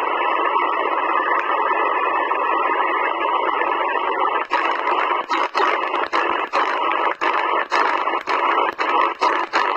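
Sihuadon D-808 shortwave receiver's speaker giving steady band hiss in USB mode on the 15-metre amateur band, with no station coming through. From about halfway the hiss is cut by short dropouts, about three a second, as the frequency is stepped up in 1 kHz steps.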